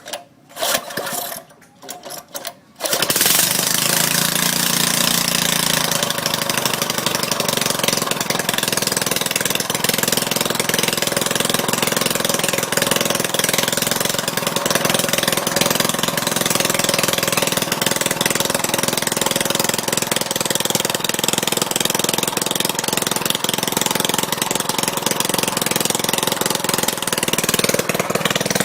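Small gasoline engine starting after being cleaned and reassembled: a few short bursts, then it catches about three seconds in and runs steadily.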